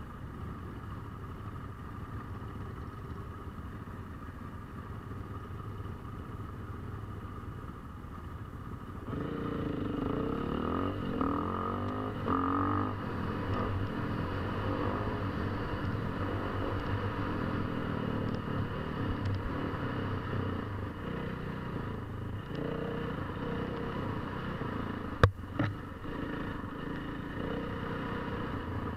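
KTM 450 EXC single-cylinder four-stroke enduro motorcycle engine running steadily. About nine seconds in it gets louder and revs up and down, the pitch rising and falling. A single sharp knock comes a few seconds before the end.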